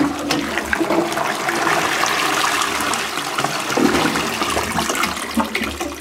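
Balterley Beo Regent Premier toilet flushing: a clunk as the flush lever is pressed, then rushing water for about five seconds that tapers off near the end.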